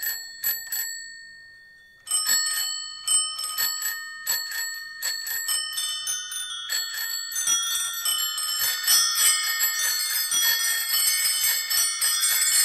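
Many bicycle bells ringing. A few single rings come first, then after a short pause a quick cascade of overlapping rings that grows denser and fuller, laid into the music track as a bell interlude.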